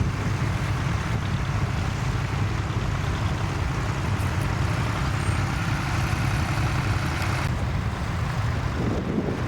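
A tractor engine running steadily, with wind buffeting the microphone.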